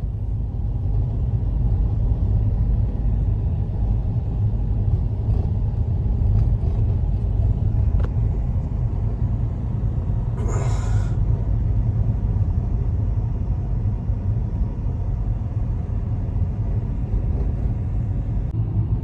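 Blizzard wind buffeting the microphone in a steady low rumble, with a brief hissing rustle about ten seconds in.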